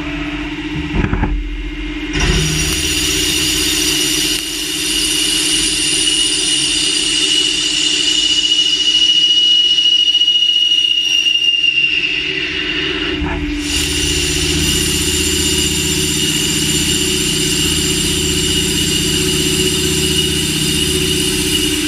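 CNC machining: a steady machine hum under a high-pitched whine from the spindle and cutting. The whine starts about two seconds in, stops at about twelve seconds and starts again a second and a half later.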